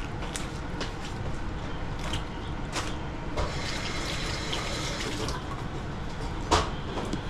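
Kitchen tap running for about two seconds while hands are rinsed under it, among short clicks and scrapes from working a fish on a wooden chopping board. There is a sharp knock about six and a half seconds in.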